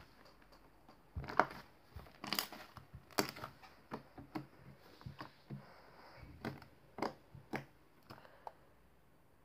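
Slime being squeezed and worked by hand, giving an irregular string of sharp pops and crackles that dies away near the end.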